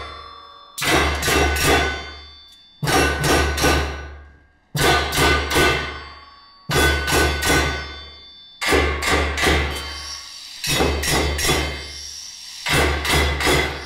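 Percussion played on old hammers and metal tools: a regular pattern of about four quick strikes every two seconds. Each strike has a deep thud under ringing metallic tones, and the ringing dies away between groups.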